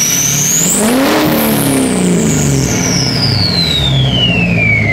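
Duramax turbo-diesel engine revved once, about a second in, then dropping back toward idle. A high turbo whistle climbs sharply with the rev, then winds down in a long, steadily falling whine.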